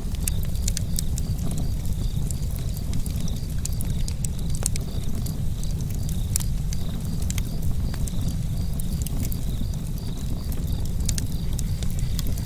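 Campfire burning: irregular sharp crackles and pops over a steady low rumble, with a faint high chirp repeating evenly about three times a second.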